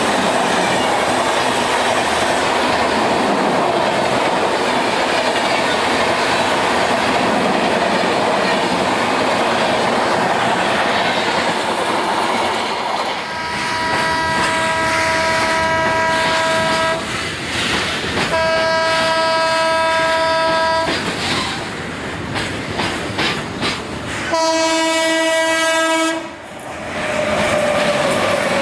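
Express train coaches rushing past at high speed on the mainline; then, about halfway in, the horn of an approaching electric locomotive sounds three long blasts, the last with a lower second tone, and the locomotive and its coaches rush past near the end.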